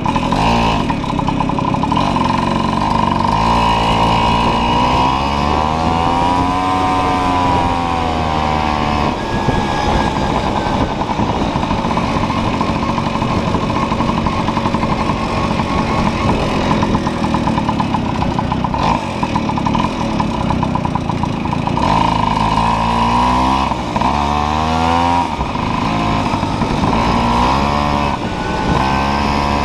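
Tomos Targa moped's small two-stroke engine under way, its pitch rising and falling as the throttle opens and closes, with quicker rises near the end.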